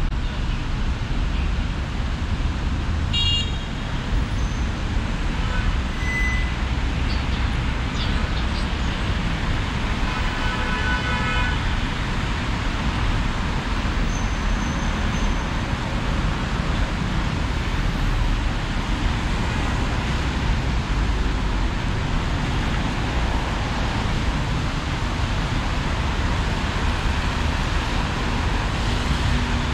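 Steady city street traffic noise from passing cars and other vehicles, with a short horn toot about three seconds in and a longer horn blast around ten to twelve seconds in.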